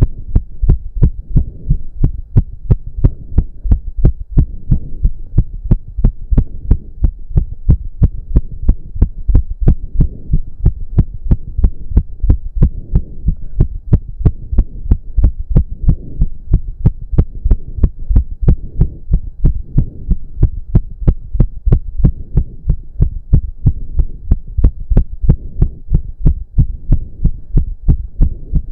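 A man's heart beating fast and hard in a quick, even rhythm, racing from intense cardio exercise, over a low steady hum.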